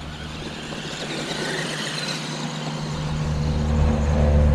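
Mid-1990s Traxxas Sledgehammer electric RC monster truck driving at full speed: motor and gear whine with tyre noise over the ground, growing louder. A steady low hum sets in about three seconds in.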